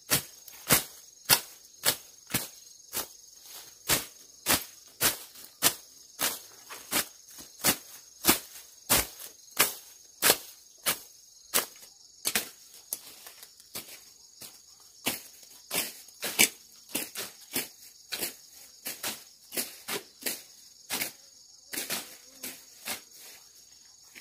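Machete hacking through weeds and grass stems: sharp slashing strokes about two a second, over a steady high drone of insects.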